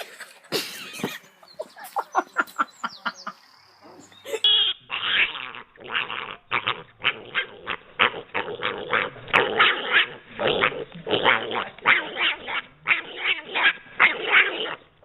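A dog giving a fast run of short, repeated calls, about three a second, starting about four seconds in; before that come a few short, sharp animal sounds.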